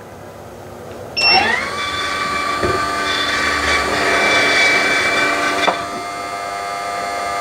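Remote-controlled RV roof vent fan starting after a short high beep. Its motor whine rises as the fan spins up, then runs steadily. About five and a half seconds in it drops to a lower, quieter speed setting.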